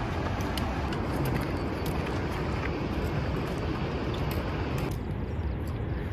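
Wind buffeting the camera microphone, a steady low rumble, with a few faint sharp ticks on top.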